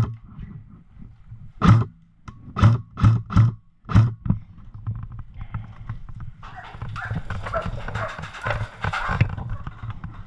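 Airsoft gun firing single shots: about six sharp pops in the first four and a half seconds, unevenly spaced. These are followed by about three seconds of a steady hiss.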